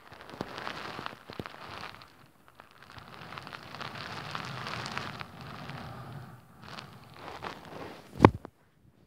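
Rustling and crackling handling noise from a phone propped on a bed, its microphone rubbing against the bedding. Near the end there is one sharp knock as the phone tips over.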